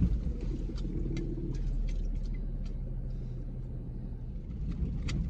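Dodge Grand Caravan minivan driving on a rough dirt track, heard from inside the cabin: a steady low engine and road rumble with scattered small clicks and knocks.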